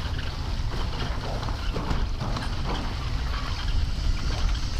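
Hooves of a saddled pack animal clip-clopping on a rough cobbled street, a run of uneven knocks, over a steady low rumble of the bicycle rolling over the cobbles.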